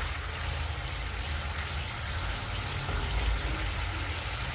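Fermented soybean mixture simmering and sizzling in a steel wok on a gas burner: a steady hiss with fine crackle.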